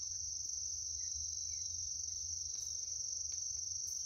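Steady high-pitched insect chorus, one unbroken shrill note, over a faint low rumble.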